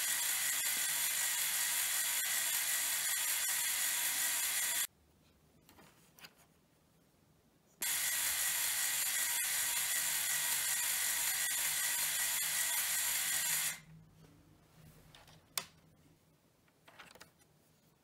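LEGO Technic drivetrain and gearbox, driven by an electric motor and running in reverse gear: plastic gears meshing at speed give a loud, steady whir. It runs for about five seconds, stops for about three, then runs for about six seconds more, and a single sharp click follows a couple of seconds after it stops.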